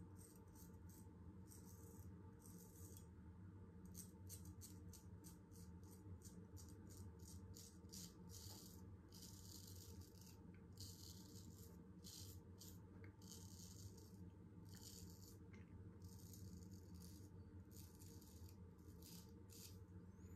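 Faint, repeated scraping of a Damascus-steel straight razor cutting through one day's stubble: many short strokes, some a little longer, at an uneven pace.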